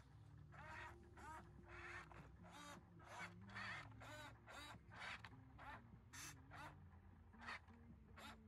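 Small electric gear motors of a radio-controlled toy construction machine whirring in short jogs, about one or two a second, each burst's whine sliding up and down in pitch, over a low motor hum that steps in pitch.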